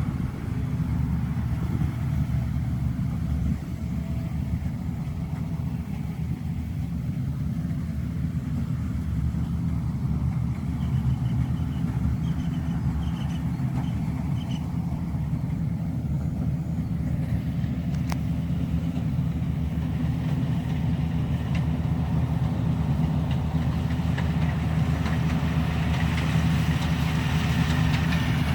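Rice combine harvester's diesel engine running steadily with a low hum, growing a little louder and hissier in the last few seconds.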